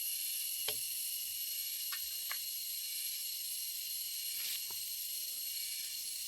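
Steady high hiss with a few thin high-pitched whines over it, and a few faint light knocks, the clearest about two seconds in; no chainsaw is running.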